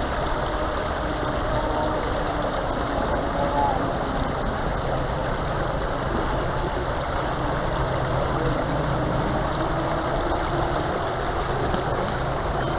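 Flowing river water: a steady, unbroken rush.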